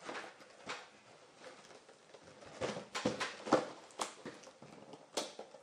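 Irregular light knocks and rustles of gift packaging being handled and opened, with the busiest cluster near the middle.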